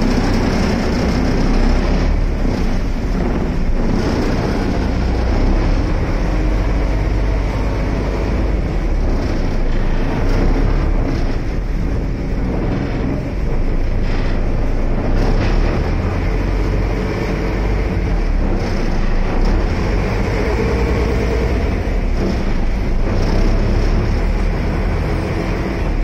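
River boat's engine running steadily underway, a dense low drone with the rush of water and wind.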